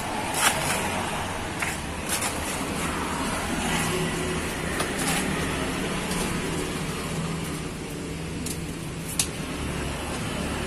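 Roadside traffic noise with a motor vehicle running nearby, giving a steady low hum through the middle of the stretch. A few light clicks sound over it, the loudest near the start and one late on.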